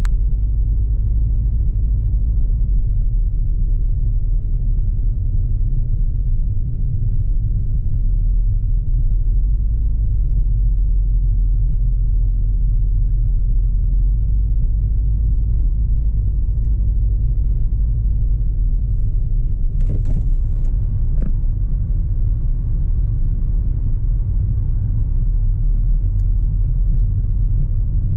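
Steady low rumble of a car being driven, heard from inside the cabin: engine and road noise. Two brief clicks come a little over a second apart, about two-thirds of the way through.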